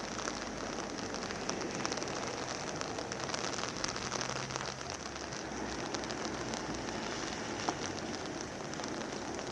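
Steady rain falling on wet surfaces, an even hiss sprinkled with many small drop ticks.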